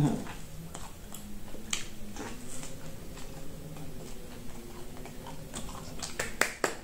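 Mouth sounds of chewing and biting roasted corn on the cob, with scattered crisp clicks as kernels are bitten off. A quick run of clicks near the end as the cob is set down on a plate.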